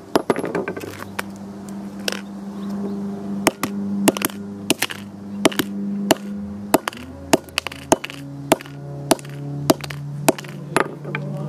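A hammer repeatedly striking a blue iPhone 5C with a shattered glass screen as it lies on rough pavement: about twenty sharp cracks and knocks, roughly one to two a second.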